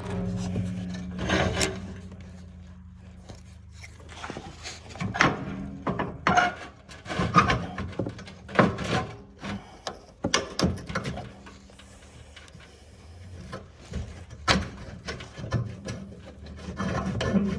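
Irregular scraping, rubbing and knocking as a snowplow is hooked up under a Can-Am ATV, over a steady low hum.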